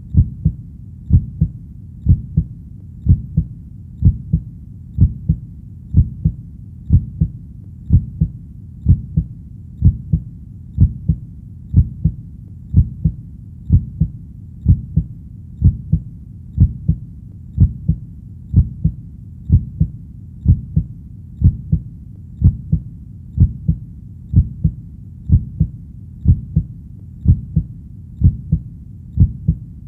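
Heartbeat beating steadily at about one beat a second, each beat a low double thump (lub-dub).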